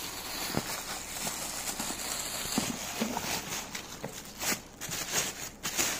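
Clear plastic bag crinkling and rustling as a boxed pair of binoculars is handled inside it: an irregular crackle with a few sharper crackles in the second half.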